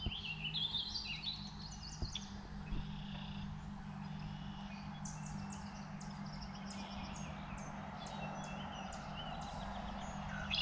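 Outdoor ambience of wild birds chirping and singing, with stepped, warbling phrases in the first few seconds. From about halfway through comes a run of short, very high chirps, roughly two a second, over a steady low hum.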